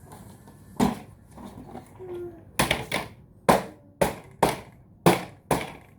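Sharp knocks on hard plastic as parts of a plastic shelf unit are banged into place during assembly: one knock about a second in, then seven more about half a second apart from halfway on.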